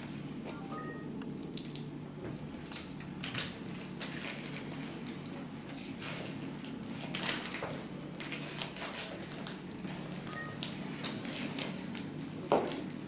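Liquid pouring and splashing onto a concrete floor, with scattered drips and small splashes.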